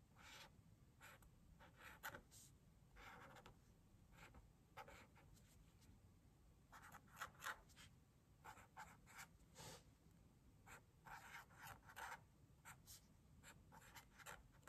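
Felt-tip marker drawing on paper in short strokes: faint, coming in irregular clusters with brief pauses between.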